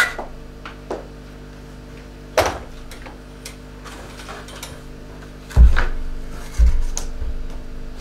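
Knocks and clatter of household things being handled and set down, with two heavy thuds about five and a half and six and a half seconds in, over a steady low hum.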